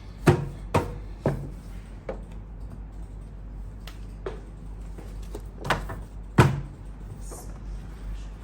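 Paper cutter chopping through stacks of printed paper: sharp knocks of the blade coming down, three in quick succession near the start and two more about six seconds in, with a few fainter ones between.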